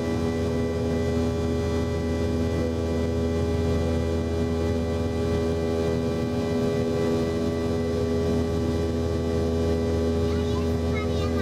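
Boeing 717-200's rear-mounted Rolls-Royce BR715 turbofan engine in flight, heard inside the cabin at a window seat right beside the engine: a steady drone with several steady tones, constant in level.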